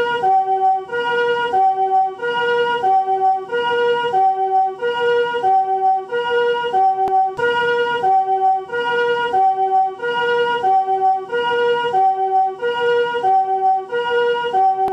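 Japanese ambulance siren of the newer chord (harmonic) type sounding its two-note "pee-po": two chords of several tones alternate evenly, a high-low pair about every 1.3 seconds, repeating steadily.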